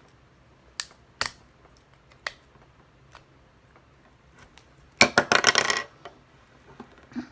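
Sharp clicks and snaps of hard plastic bath toys being cut and forced apart: a few single clicks, then a burst of rapid clattering about five seconds in, the loudest sound.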